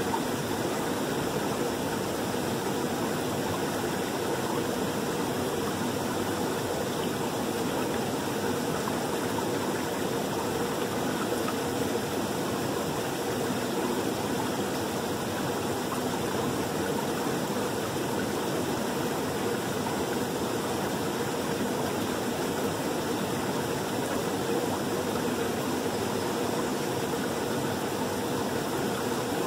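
Creek water running over rocks: a steady rush with no change in level.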